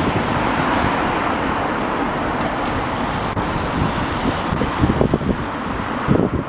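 Road traffic noise: a motor vehicle running close by, a steady rush that holds level and fades just after the end.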